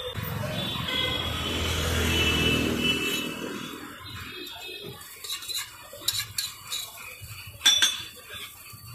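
A flat metal spatula scraping and clinking on a dosa griddle (tawa) as a dosa is cut and rolled, a series of sharp strokes in the second half, the loudest near the end. Before that, a steady rumble swells and fades over the first few seconds.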